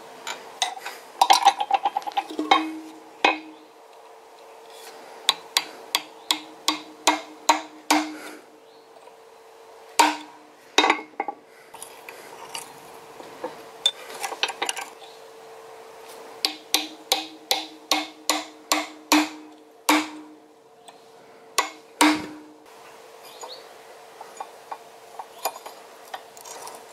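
Light hammer blows on a small eye punch driven into hot steel held in a vise: sharp metallic taps in quick runs of several strikes with pauses between, some leaving a short ring.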